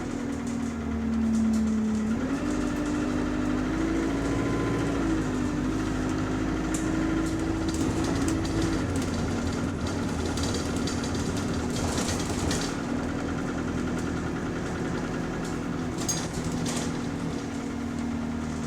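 Bus engine and drivetrain running, heard from on board, with a whine whose pitch steps down and up a few times as speed and gears change, and occasional light rattles.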